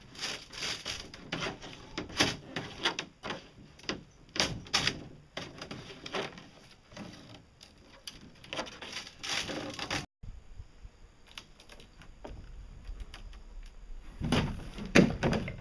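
Thin fiberglass hull shell crackling and scraping in quick irregular clicks as it is worked loose from its mold by hand. Near the end, a few heavier thuds and rattles as the freed shell is lifted and handled.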